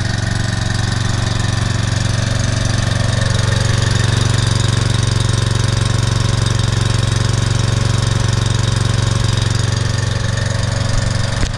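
Husqvarna HU775BBC walk-behind mower's Briggs & Stratton 7.75 gross-torque single-cylinder engine running steadily as it warms up just after starting. The choke is off and the blade is not yet engaged.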